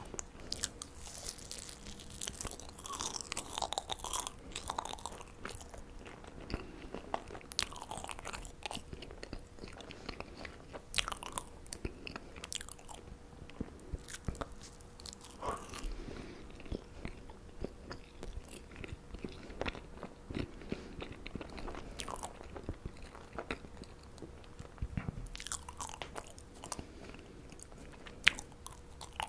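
Marshmallows being bitten and chewed close to the microphone: irregular clusters of sticky clicks and crackles, with pauses between mouthfuls.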